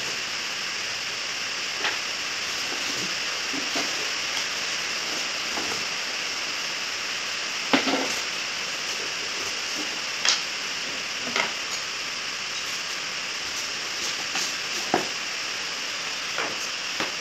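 Flat white particleboard cabinet panels being moved and laid down on a tiled floor: scattered light knocks and clacks every few seconds, the loudest about eight seconds in, over a steady background hiss.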